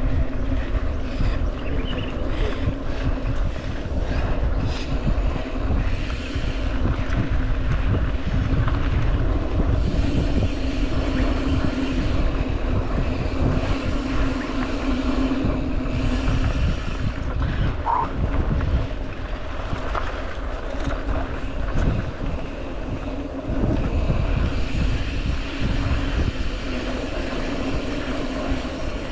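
Steady motor drone holding one pitch, with wind rumbling on the microphone while moving.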